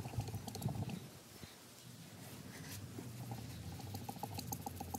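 A Khmer sword blade being worked on a sharpening stone: rapid scraping strokes of metal on stone with scattered light clicks, pausing about a second in and starting again past the middle.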